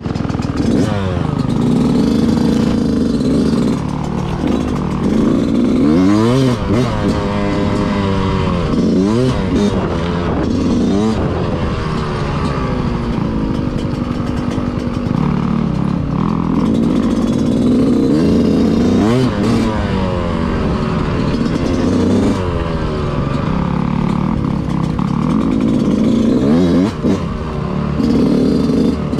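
Dirt bike engine being ridden, revving up and falling back over and over as the throttle opens and closes, with some mechanical clatter.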